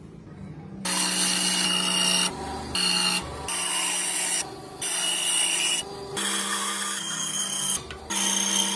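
Electric power tool working wood: a loud abrasive noise over a steady motor hum, starting about a second in and dipping briefly every second or so.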